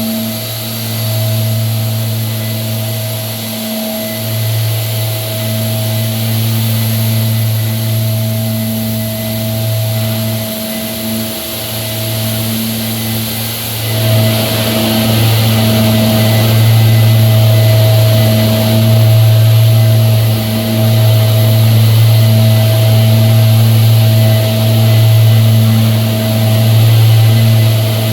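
Electric ceiling sander running steadily, a low motor hum with a hiss on top. About halfway through it gets louder and hissier.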